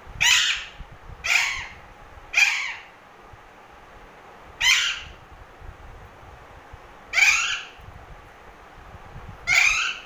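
Alexandrine parakeet giving six harsh squawks, each about half a second long, the first three about a second apart, the rest two to two and a half seconds apart.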